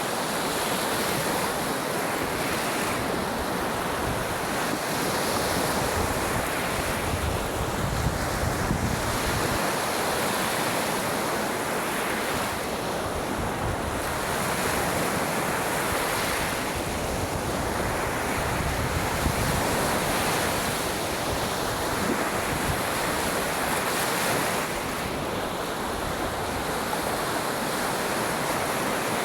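Waves breaking and washing on the shore in a steady surf, swelling and easing every few seconds, with wind buffeting the microphone.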